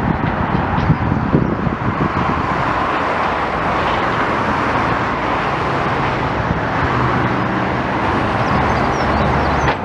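Steady engine and traffic noise, with a few sharp knocks about a second in and a low engine hum coming up in the last few seconds.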